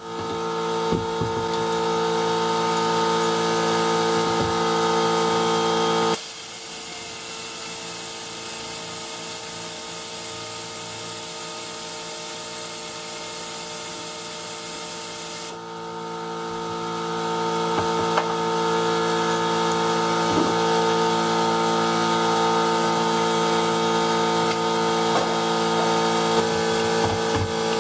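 Air tool on a compressed-air hose working on the water pump bolts of a Prius engine, over a steady mechanical hum, with light clicks of tool on metal. A loud hiss of air sets in about six seconds in and stops about fifteen seconds in.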